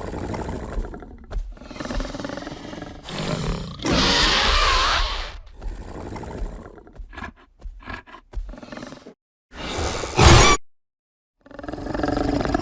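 Monolophosaurus sound-design calls, built mostly from pig vocalizations, growling, roaring and screeching in a string of separate calls with short gaps between. The loudest is a shrill scream about ten seconds in, after a long screech about four seconds in, and a new growl starts near the end.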